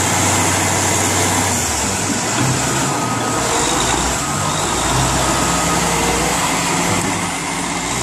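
Heavy diesel engine of a Caterpillar wheel loader running under load at a crawler bulldozer, a loud hiss over a low engine drone that changes pitch a few times.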